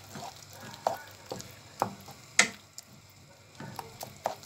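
Wooden spoon stirring and scraping thick tomato and onion sauce in a frying pan, the sauce sizzling. The strokes come in irregular scrapes and knocks, with a sharper knock against the pan about two and a half seconds in.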